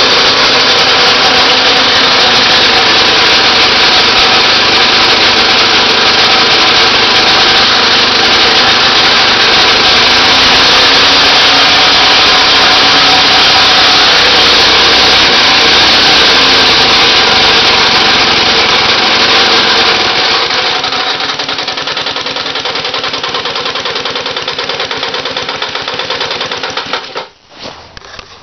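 Homemade three-cylinder radial engine built from Briggs & Stratton parts, running loud and rough at high revs, then dropping to a lower speed about two-thirds of the way through and dying away near the end. The god awful noise comes from clearance in its crankshaft joints, and it is running on only two of its three cylinders after a mechanical failure.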